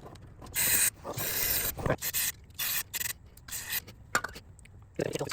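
Aerosol carburetor cleaner sprayed in about four short bursts of hiss into a small engine's carburetor passage, to flush out a clog from old fuel. There are a few light knocks between the bursts.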